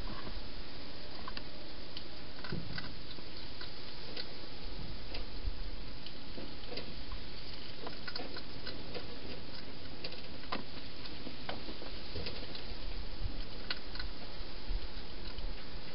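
Hedgehog eating at a bowl inside a plastic feeding box: irregular small clicks and crunches of chewing, over a steady hiss from the camera microphone.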